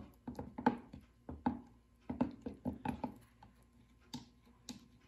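A spoon stirring in a small glass jar of powdered gum arabic and water, giving irregular light taps and clicks against the glass, a few each second.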